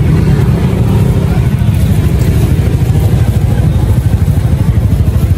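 Loud, steady low rumble of nearby motorbike traffic, with a rapid flutter.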